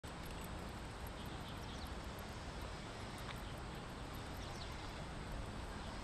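Faint, steady low rumble of wind and tyre noise from a moving bicycle, with a few faint short high chirps.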